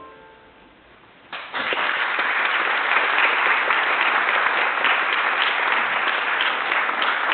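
The last handbell chord dies away, then applause breaks out about a second in and carries on steadily.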